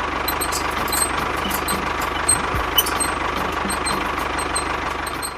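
Small motor of a DIY mini construction model running steadily: a continuous whir with a faint steady whine and scattered light clicks.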